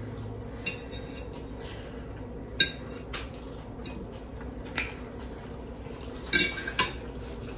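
Metal fork clinking and scraping on a ceramic dinner plate: a few scattered sharp clinks with a brief ring, the loudest cluster about six seconds in.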